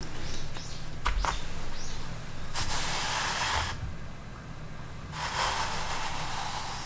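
Plywood boards rubbing and scraping against each other as a top board is swivelled across the base, in two long sliding strokes, with a couple of light knocks about a second in.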